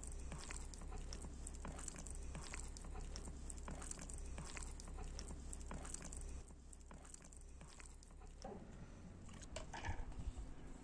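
Hands kneading damp acorn dough in a steel bowl: repeated soft squishing and slapping strokes. After about six seconds the sound drops to quieter handling, with a few sharp clicks near the end.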